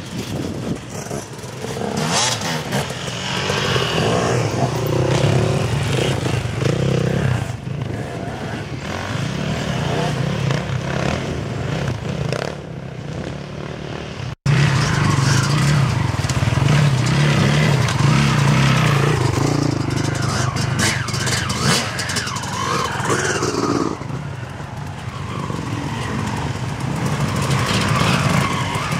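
Several off-road dirt bike engines running and revving up and down as the bikes ride past on a muddy woodland trail, the sound swelling and easing as each one passes. The sound drops out for an instant about halfway through.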